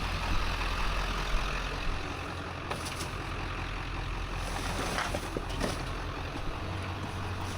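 Vehicle engine idling steadily with a low hum, with a few light clicks about three and five seconds in.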